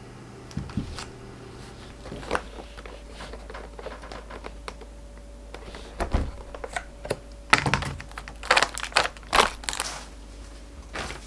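Hands handling a hard clear plastic tub of frozen raspberries and pulling its lid off: a run of sharp plastic clicks and crackles that gets denser and louder in the second half, after a few scattered light taps.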